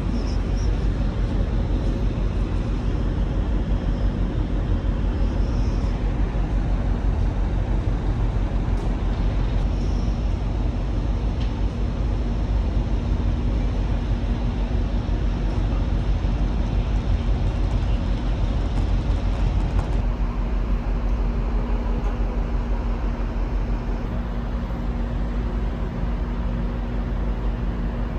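Steady drone of the ferry's machinery heard from the open deck, with an even low hum running through it and wind rumbling on the microphone.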